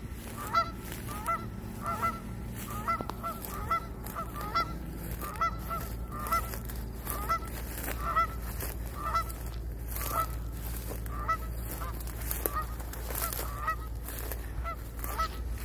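A flock of Canada geese honking, the honks coming over and over at about one a second.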